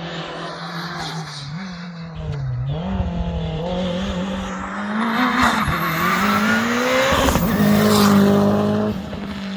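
Race car's engine lifting off for a hairpin, then accelerating hard out of it. The revs climb and drop back twice at quick gear changes, and it is loudest as the car passes close by near the end.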